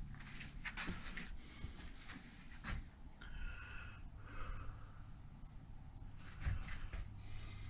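Faint handling noises: scattered light clicks and short rustles of large paper plan sheets being shifted and touched.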